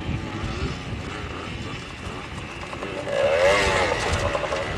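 Several 175cc Yamaha two-stroke motorcycle engines, specially muffled, running as the bikes ride over rough ground. The engine note rises and falls with revving and gets louder about three seconds in.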